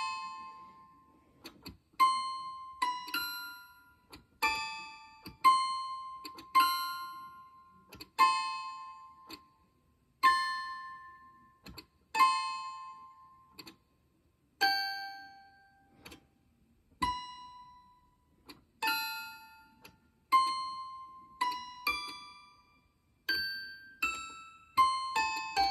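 Tiny toy piano played slowly, one high note or two-note chord at a time, each note ringing and fading before the next, with short clicks from the keys between. The notes are spelled out from the letters of a written letter.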